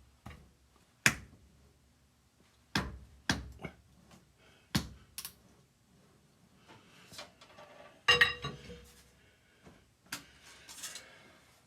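Several sharp knocks at uneven intervals, with faint metallic clinking between them, as a Caterpillar Sixty piston is tapped down through its ring compressor band into the cylinder.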